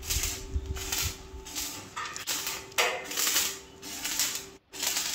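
Workshop noise: repeated hissing, clattering bursts about once or twice a second over a steady hum.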